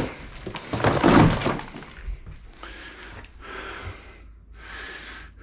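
Wall demolition: knocks and a loud crack of breaking wall material in the first second and a half, followed by several short rasping scrapes.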